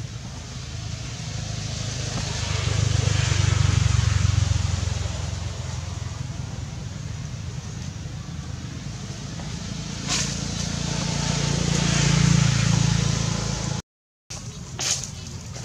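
Motor vehicles going past: a low engine rumble that swells and fades twice, loudest about four seconds in and again about twelve seconds in.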